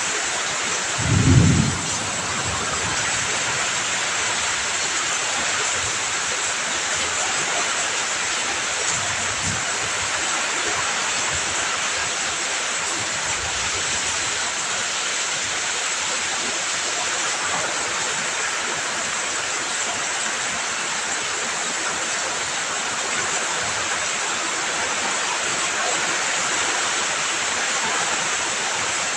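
Heavy rain falling steadily as an even hiss, with a brief low thump about a second in.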